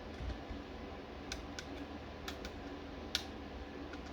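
About five light plastic clicks, spread from about a second to three seconds in, as the front landing gear of a LEGO X-Wing (set 75218) is folded up, over a low steady hum.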